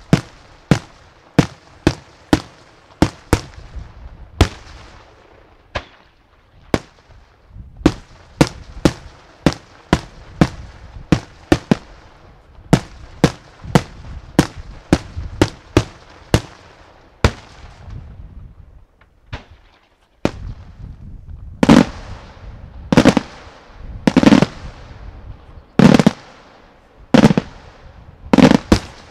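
Daytime aerial fireworks shells bursting in a quick run of sharp bangs, about two a second. After a short lull, a slower series of six louder, heavier bangs follows, each trailing an echo.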